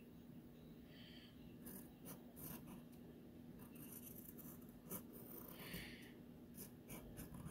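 Faint pencil scratching on paper in short, separate strokes as a drawing is sketched.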